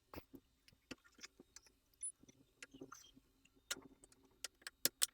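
Irregular sharp plastic clicks and ticks as a pry tool works loose the clips of a laptop's bottom cover.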